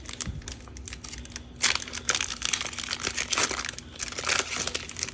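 Thin plastic crinkling and rustling as it is handled, in quick uneven bursts that get busier and louder about a second and a half in, over a faint steady hum.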